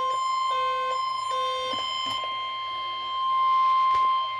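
NOAA Weather Radio warning alarm: a steady single 1050 Hz tone, the signal that a warning broadcast is about to follow. For about the first two seconds a second alert beeps over it in short on-off notes at other pitches.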